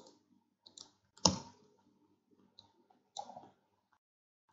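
A few scattered clicks of computer keys and a mouse, one at a time, the sharpest a little over a second in.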